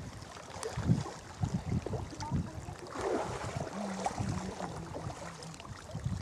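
Shallow seawater sloshing and splashing as people wade through it, with irregular low thumps.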